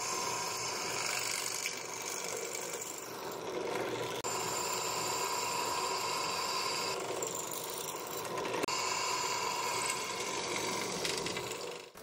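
Benchtop drill press running, its twist bit cutting through an aluminium heatsink. The motor sound is steady, and the higher cutting tones change a few times as the bit is fed in.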